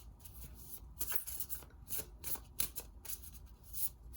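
A deck of reading cards being shuffled by hand: a run of short, uneven papery riffles, several a second.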